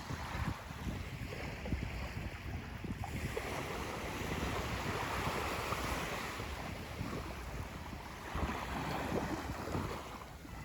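Small waves washing onto a sandy beach, the wash swelling twice, with wind buffeting the microphone.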